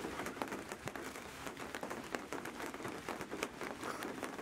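Rain pattering: a steady hiss of many small, irregular drop ticks.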